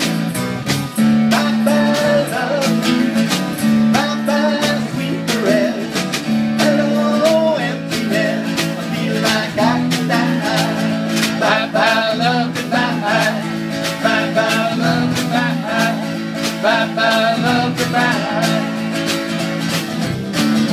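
Live band playing: strummed acoustic guitars with an electric guitar and a drum kit keeping a steady beat, and a wavering melody line over the top.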